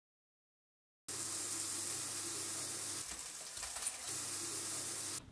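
Silence for about a second, then a spoon stirring and scraping food in a stainless-steel bowl, over a steady hiss like sizzling or running water.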